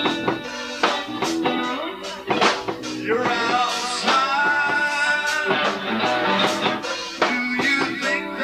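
Live band playing a song: electric guitar leading over bass and drums, with steady drum hits and sustained guitar notes.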